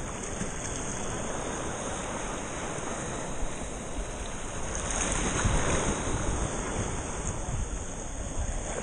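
Small waves lapping and sloshing in shallow, rocky seawater close to the microphone, with some wind on the microphone; the wash swells louder about five seconds in.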